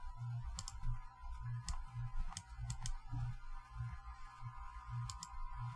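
Computer mouse clicks while navigating a file browser: a handful of sharp clicks, some in quick double-click pairs, over a faint low pulsing hum.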